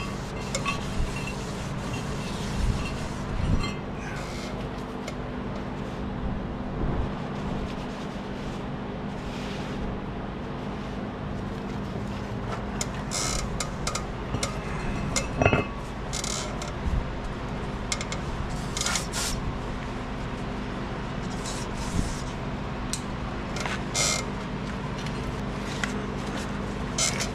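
Scattered metal clinks and knocks from hand tools and brake parts, with a few short hissing bursts. A steady low hum runs underneath.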